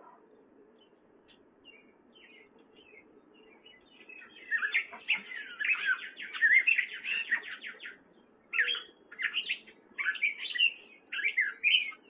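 Gray catbird singing: a jumble of quick, varied squeaky notes. After a few faint chirps it breaks into a long run of song about four seconds in, followed by shorter phrases with brief pauses between them.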